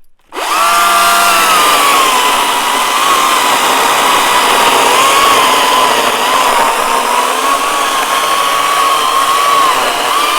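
GreenWorks Commercial battery chainsaw starting up about a third of a second in, then running flat out with a steady high electric whine and chain noise. The whine sags a little after the first second and wavers, as the saw works under load through the wood.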